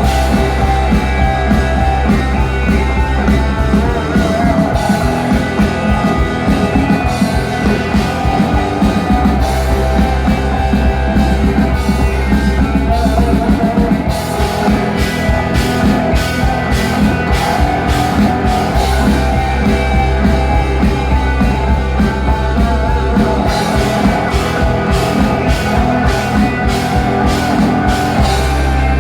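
A rock band playing live: electric guitar, bass and drums. Long low notes change every few seconds under a steady drum beat.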